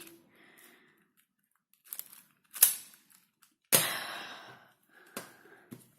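A few sharp plastic clicks and knocks from Rubik's cubes being handled, with a short rattling clatter about four seconds in.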